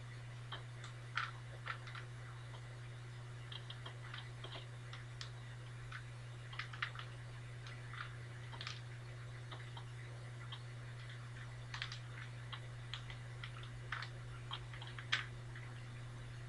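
Plastic Rubik's Cube faces being turned by hand: irregular quick clicks and snaps, several a second at times, with a steady low hum underneath.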